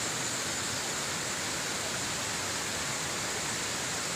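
Steady rush of river water running through stone-walled watercress terraces, spilling over the rock walls.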